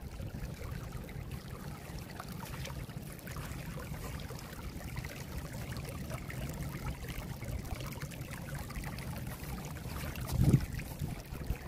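Stormwater welling up out of two submerged drain outlets into a stone-lined pool, a steady low trickle and burble of moving water. A brief low thump near the end.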